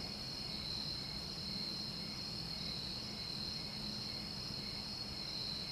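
Crickets chirring steadily, over a low steady hum.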